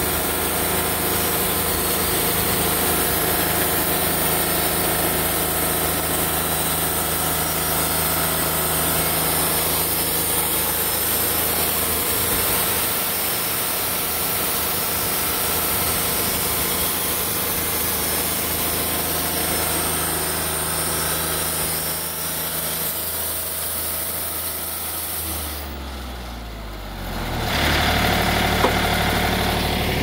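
A portable band sawmill's engine runs steadily under load while the band blade cuts a board off a cant. About 26 seconds in, the engine note falls away as the cut finishes, then settles into a steady, lower run.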